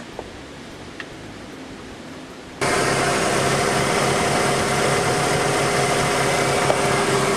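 A few faint clicks of parts being handled, then, about two and a half seconds in, a Ford F-150 engine cuts in idling steadily, with the new alternator charging at about 14 volts.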